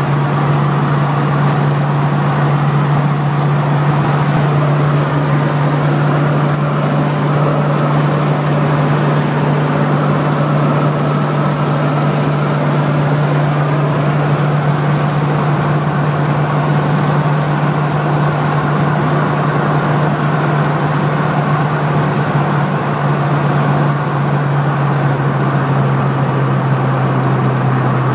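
Car driving at a steady cruising speed, heard from inside the cabin: a constant low engine hum under steady tyre and road noise.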